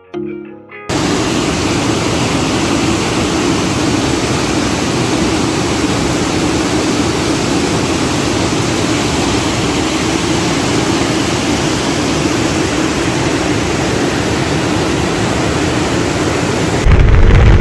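Waterfall and mountain stream rushing over rocks: a steady, loud rush of water. A louder low rumble is heard near the end.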